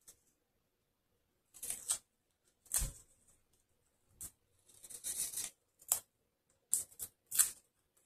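Small scissors snipping through a strip of wide adhesive tape: a series of about eight short cuts with quiet gaps between them, one of them longer about five seconds in.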